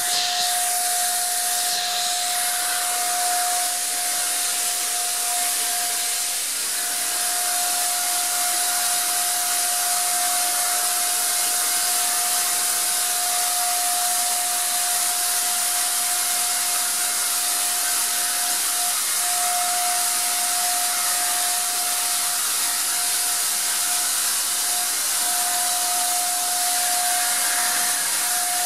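Wagner 150 paint sprayer running and spraying screen paint onto a panel: a steady airy hiss with a steady motor whine, which drops out briefly a few times.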